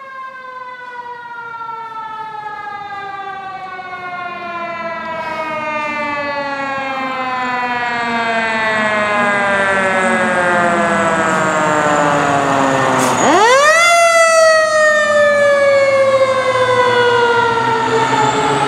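Fire engine's Federal Q mechanical siren coasting down in pitch, wound back up sharply about two-thirds of the way through, then coasting down again. It grows louder as the engine approaches.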